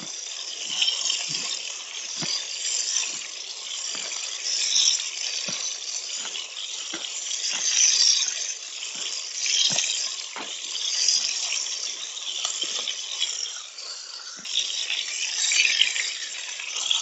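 Burger patties and mushrooms frying in hot grease in a pan on a camp stove: a steady sizzle that swells and fades, with frequent small pops and crackles.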